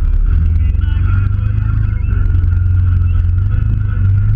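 Off-road vehicle's engine running steadily at low speed, a strong low rumble heard up close from its bonnet, with a fainter high whine above it.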